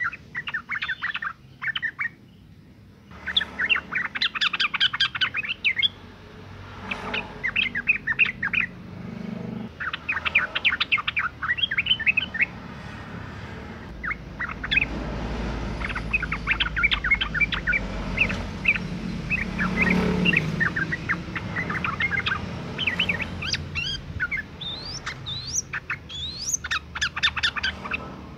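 Female yellow-vented bulbul (trucukan) calling: phrases of rapid chattering notes a few seconds long, broken by short pauses, with some rising notes near the end. This is the female call used as a lure to set males singing. A low rumble runs under the middle of it.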